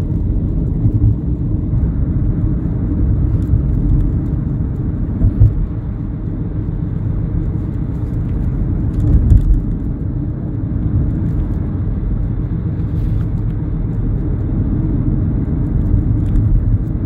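Steady road rumble of a car driving at a constant town speed, heard from inside the cabin: tyre and engine noise, with a few faint ticks.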